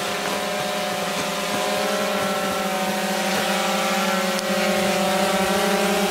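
Quadcopter drone hovering and flying, its electric motors and propellers making a steady multi-pitched buzzing whine that grows a little louder about four and a half seconds in.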